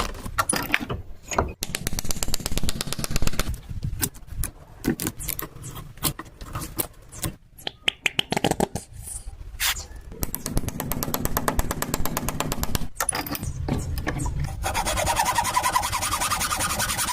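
Woodworking tools cutting and scraping wood: several bouts of rapid, rasping strokes broken by short pauses and a few knocks.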